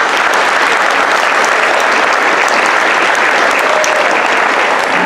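Audience of children and adults applauding steadily.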